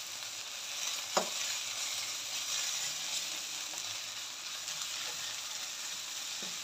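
Grated radish frying in a non-stick wok, a steady sizzle as a steel ladle stirs it, with one sharp knock of the ladle against the pan about a second in. The radish still holds a little water that is cooking off.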